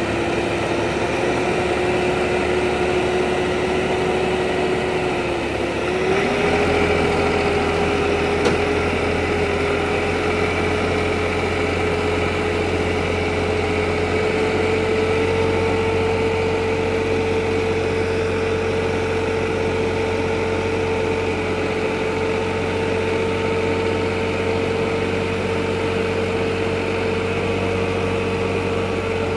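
Tractor engine running under load while towing a heavy bus on a chain. Its pitch steps up about six seconds in and holds high, then drops near the end.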